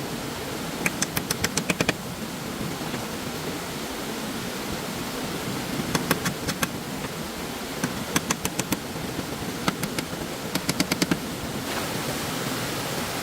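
Short runs of quick, sharp knocks, a handful of times, over a steady rushing noise.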